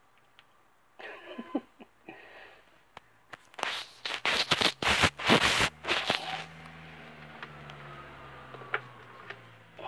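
Handling noise: a hand fumbling against the camera and its microphone, with light scuffling a second in, then a run of loud rubbing and knocking for about three seconds in the middle. A faint steady low hum follows near the end.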